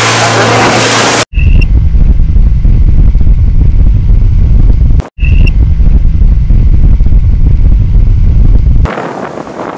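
Motorboat running at speed: rushing wind and water at first, then after about a second a loud, steady low rumble of engine and hull with wind on the microphone. The rumble cuts out abruptly twice.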